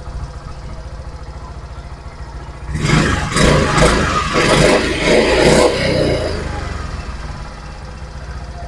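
Suzuki Burgman scooter engine idling through a custom-made stainless steel muffler, then revved in a series of quick throttle blips from about three seconds in to about six seconds before settling back to idle. The note sounds stock, slightly fuller but not noisy.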